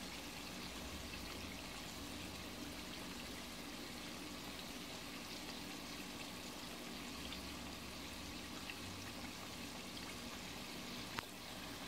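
Flour-coated chicken legs deep-frying in oil over low heat: a steady gentle sizzle with scattered light crackles and one sharp pop about eleven seconds in. A faint steady hum runs underneath.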